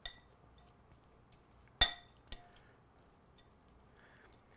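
Metal fork clinking against a glass mixing bowl while stirring meat: three short ringing clinks, the loudest about two seconds in, the others lighter.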